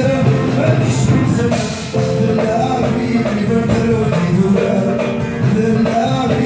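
Live Kabyle music: a plucked lute playing melody over a hand drum's beat.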